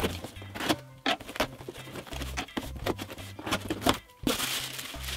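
Scissors cutting and scraping along the packing tape of a cardboard parcel, with clicks and scrapes as the box flaps are opened, then paper packing crinkling near the end.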